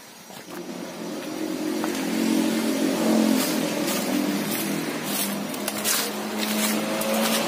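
An engine running steadily, growing louder over the first two seconds, with footsteps crunching on dry leaves and gravel.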